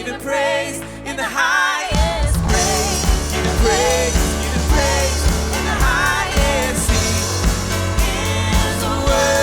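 Live church worship band playing: singers over piano. About two seconds in, the bass and drums come back in and the full band plays on.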